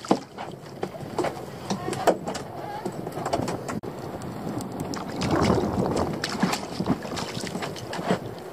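Water slapping and lapping against the hull of a small fishing boat, with wind on the microphone and scattered knocks and clicks on board; the water noise grows louder for a second or so about five seconds in.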